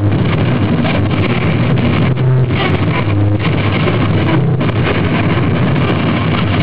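Live heavy metal: loud, heavily distorted electric guitar and drums blurring into one dense, steady wash of sound.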